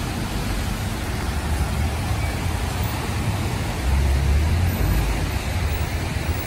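Steady hiss of rain and traffic on a wet road, with a deep rumble from passing vehicles that grows louder about four seconds in.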